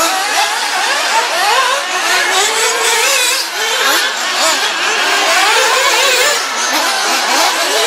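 Several radio-controlled off-road racing buggies running around a dirt track, their motors' high pitches overlapping and constantly rising and falling as they speed up and slow down.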